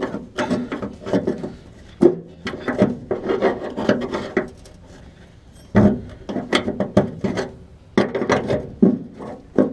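Metal scraping and grating in irregular bursts as a pry bar works a long-seated upper control arm loose from its frame mounts, with a short lull about halfway through.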